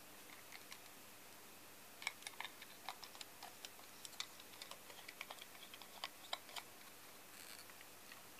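Small, sharp clicks and taps of a brass AirGraver handpiece and a clear plastic plate being handled and fitted together by hand, an irregular quick run of them starting about two seconds in and stopping a couple of seconds before the end.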